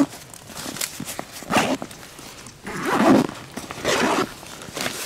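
Zipper on a nylon backpack pulled open in several short strokes, with the fabric rustling as a hand rummages inside the pack.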